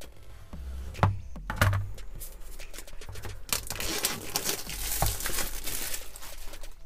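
Clear plastic shrink wrap on a cardboard phone box, cut with a knife and peeled off by hand. A couple of sharp clicks come first, then dense crinkling and tearing from about two and a half seconds in until near the end.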